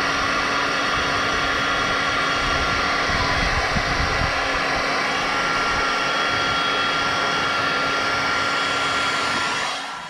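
Electric heat gun blowing hot air steadily, shrinking heat-shrink tubing over a crimped wire connector; the rush of air carries a steady hum and falls away near the end as the gun is switched off.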